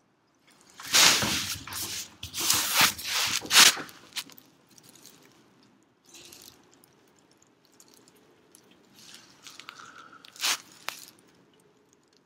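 Dry grass tinder bundle crunching and crackling around a hand-drill ember, loud for the first few seconds, then quieter crackles and one sharp crack near the end.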